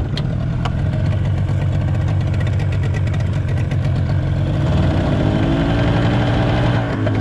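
Boat engine running steadily, its note wavering up and down from about halfway through.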